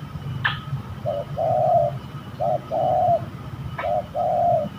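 Spotted dove (tekukur) cooing: three phrases, each a short note followed by a longer held coo, about one and a half seconds apart. Two brief sharp chirps fall near the start and near the end.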